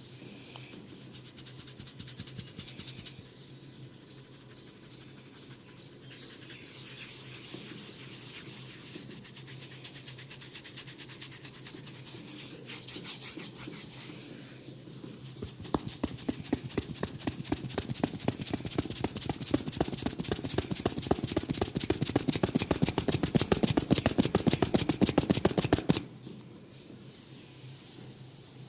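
Fingers rubbing and scratching through hair on the scalp, close to the microphone. It starts as a soft rustle, then about halfway in turns into a fast, loud run of scratching strokes that stops suddenly a few seconds before the end.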